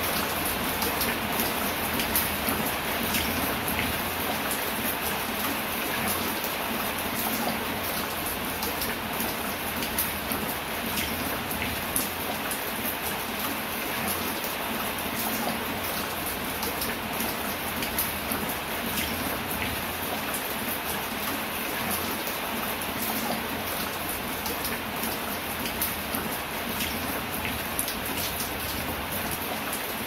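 Steady light rain falling on leafy foliage, an even hiss with many small, scattered drop ticks.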